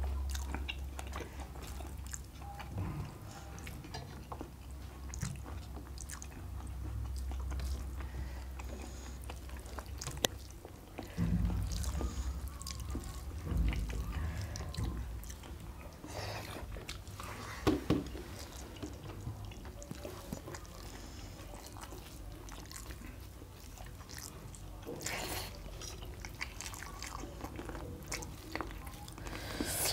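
Close-miked chewing and mouth sounds of people eating rice and mutton curry by hand, with scattered short clicks. A low rumble comes and goes underneath.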